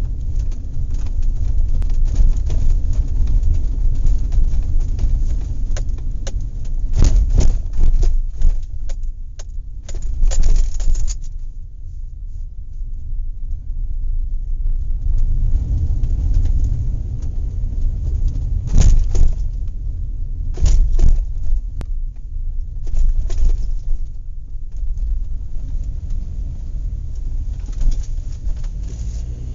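Horse farm outdoor recording: a steady low rumble, broken several times by short, sharp noisy bursts, with bird calls faintly in the mix.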